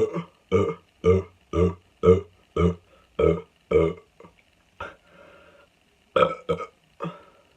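A person burping over and over after drinking a whole can of carbonated water, letting out the gas from the fizz in short burps about twice a second. The burps weaken after about four seconds, and a few more come near the end.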